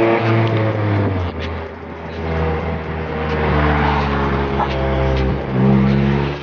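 Acura TSX's K24 four-cylinder engine pulling under load with a loud exhaust. The pitch slides down, then climbs again, with a brief break about five seconds in. The loudness comes from an exhaust leak at a failed flex pipe.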